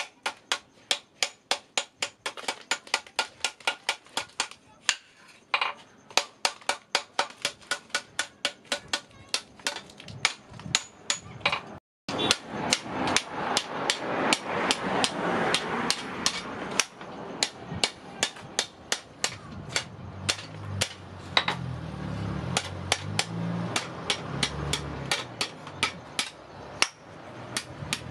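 Hand hammer striking steel on an anvil in a steady run of about three blows a second, forging a knife's rolled tubular socket handle. The hammering breaks off for a moment about halfway through, then carries on.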